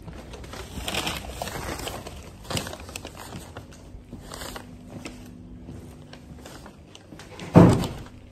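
Paper takeout bag crinkling and rustling as it is carried, with a brief loud sound near the end.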